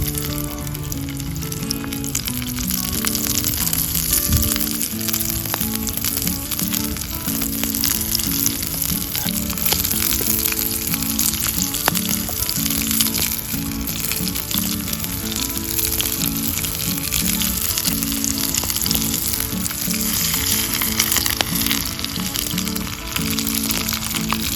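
Food frying in oil in a pan: a steady sizzle with fine crackles throughout.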